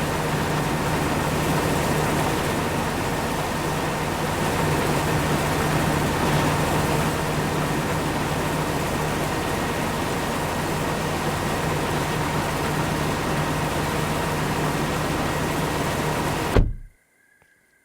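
Corn-harvesting farm machinery running steadily: a loud, even engine-and-machine drone with a constant hum and a faint steady whine, which cuts off suddenly near the end.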